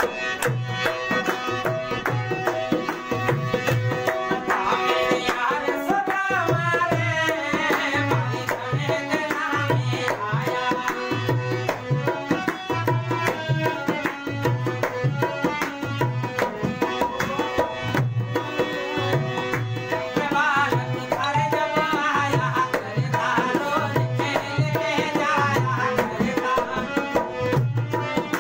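Harmonium playing a bhajan melody over held notes, accompanied by a hand drum keeping a steady beat.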